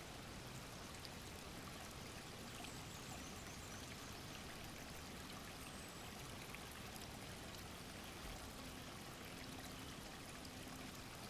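Faint steady rush of running water, with a few faint high chirps.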